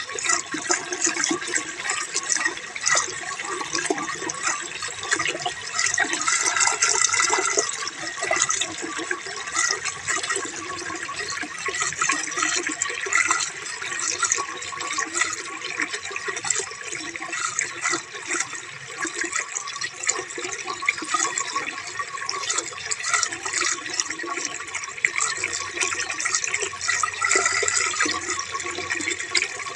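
Running water splashing and gurgling continuously, with a busy, uneven splatter that never stops.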